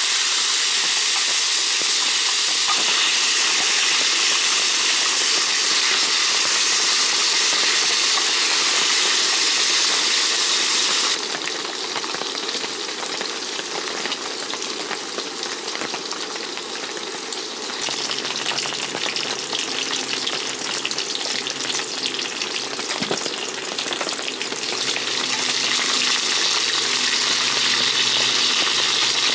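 Pork belly sizzling in its own fat on a steel griddle, with tongs turning and stirring the pieces. The sizzle eases off about eleven seconds in and grows loud again near the end.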